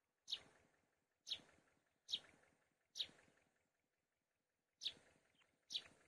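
Black-winged kite calling: six short, sharp, high calls that drop in pitch and fade, about one a second, with a longer pause past the middle.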